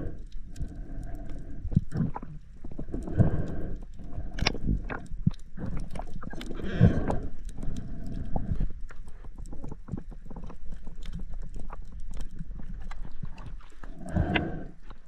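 Underwater sound in shallow, breaking surf, heard through a GoPro housing: a low rumble with muffled rushing surges every few seconds and scattered sharp clicks and knocks.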